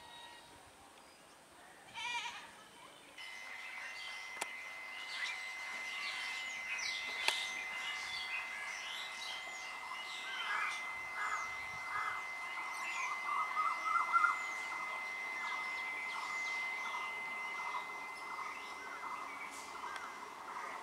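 A goat bleats once, briefly, about two seconds in. Then many birds chirp continuously over a steady high-pitched tone.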